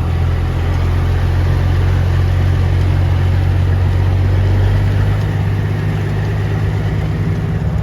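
Semi truck's diesel engine running under way with a steady low drone, easing a little about five seconds in.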